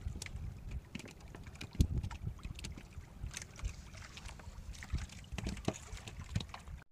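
Scattered light knocks and taps on a small wooden fishing boat, with low rumbling thumps of wind on the microphone.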